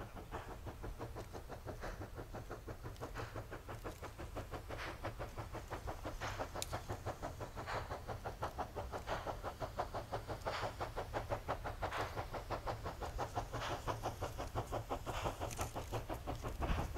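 Steam locomotives working hard on a heavy coal train, one at the head and one pushing at the rear, with rapid rhythmic exhaust chuffs over a low rumble. The sound grows louder as the train comes closer.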